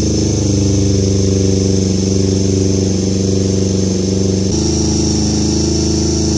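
Yamaha MT-25's parallel-twin engine idling through a fresh R9 H2 full-system exhaust, a steady deep drone. Its pitch steps slightly about four and a half seconds in.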